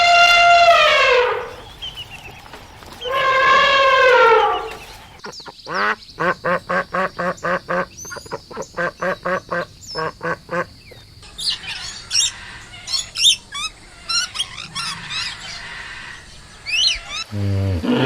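Animal and bird calls: two long calls that drop in pitch at the end, then a fast run of short harsh calls about three a second, then scattered high chirps.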